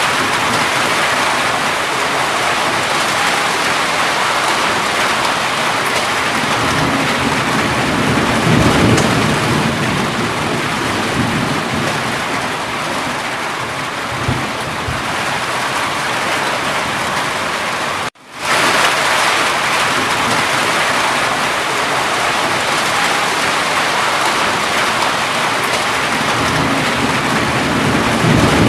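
Steady heavy rain falling, with low rumbles of thunder about eight seconds in and again near the end. The sound drops out for an instant about 18 seconds in and quickly comes back up, as at the seam of a looped recording.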